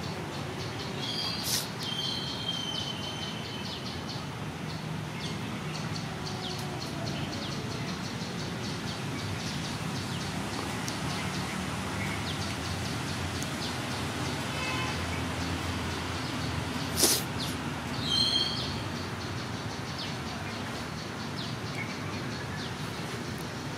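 Outdoor background noise, a steady low rumble, with a few short high bird chirps: one about a second and a half in, trailing into a held whistle, and another pair near eighteen seconds. A single sharp click just before the second chirps is the loudest moment.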